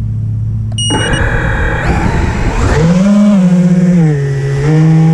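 Emax Hawk 5 quadcopter's brushless motors and propellers spinning up and lifting off, heard from the onboard camera. A brief high beep comes about a second in, then a whine whose pitch rises and falls with the throttle.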